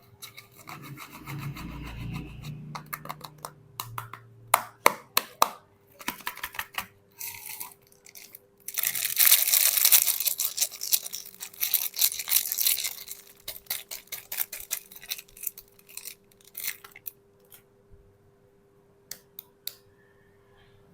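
Soap packaging being unwrapped by hand: crinkling and sharp clicks of wrapper handling, with a longer tearing stretch of several seconds from about nine seconds in. A faint steady hum runs underneath.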